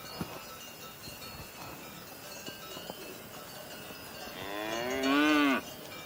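A cow mooing once, a single call of about a second and a half that starts about four seconds in, rises slightly in pitch and then falls away.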